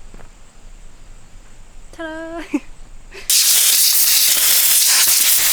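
Near quiet, then about three seconds in a jet of pressurised gas starts suddenly, hissing loudly and steadily.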